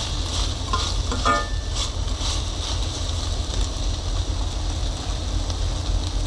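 Chicken pieces sizzling in a steel pot on a portable stove, with a metal spoon stirring and scraping the pot during the first two seconds, a short squeak about a second in. A steady low rumble runs underneath.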